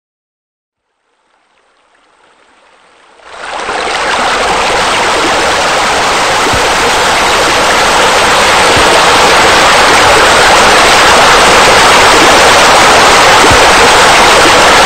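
Steady rush of falling water, like a waterfall or fountain: it fades in faintly, then jumps to loud about three seconds in and stays even.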